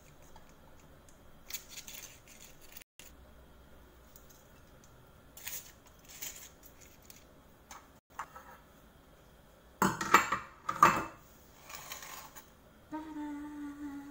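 Paper-lined cupcakes and a metal muffin tin being handled on a countertop: light rustles and clicks, with a louder clatter about ten seconds in as the tin and plate are moved. A steady pitched tone starts near the end.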